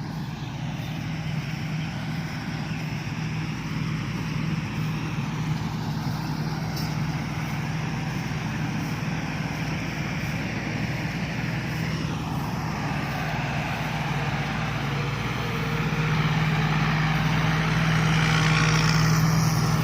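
Combine harvester engines running steadily: a low hum with a broad rushing noise over it, growing louder about three-quarters of the way through.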